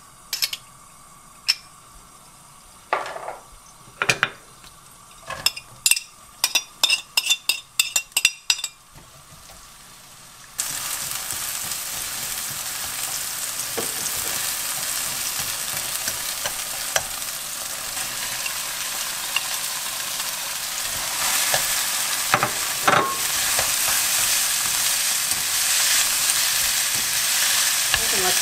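Sharp clinks and taps of utensils against a wok for the first ten seconds, then chopped green onion hitting hot cooking oil and perilla oil starts a loud, steady sizzle about ten seconds in, stirred with wooden chopsticks that click against the pan now and then.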